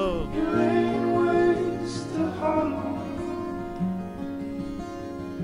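Music: a slow melody of held notes that change every half second or so, slowly getting quieter.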